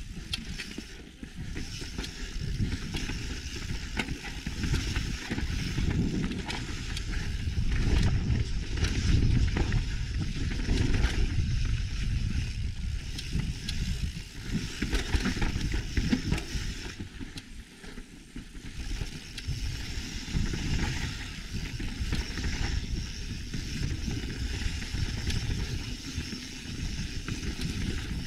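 Mountain bike tyres crunching and rattling over a gravel and rock trail on a descent, with wind buffeting the microphone. The noise rises and falls with speed and eases briefly about two-thirds of the way through.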